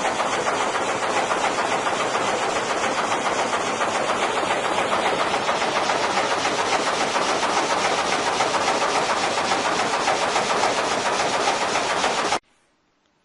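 Steam-powered sawmill machinery running with a loud, fast, even clatter, which stops abruptly near the end.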